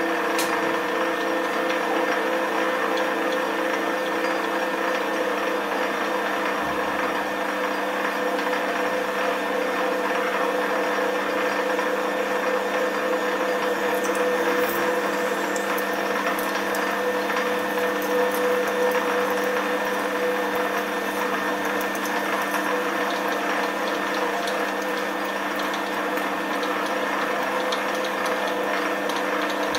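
Metal lathe running steadily while a twist drill in the tailstock chuck bores into the spinning workpiece: an even machine hum made of several steady tones, with a few faint ticks from about halfway on.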